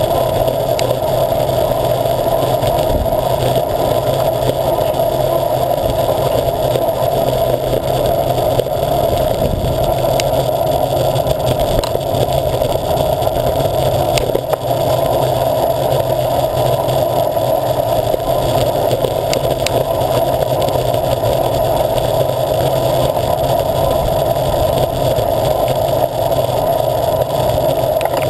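Steady wind rush on the microphone and tyre hum from a bicycle ridden along tarmac, at an unbroken level throughout.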